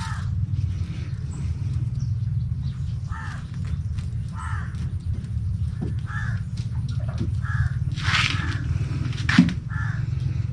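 A bird calling over and over, a series of short calls a second or two apart, over a steady low hum.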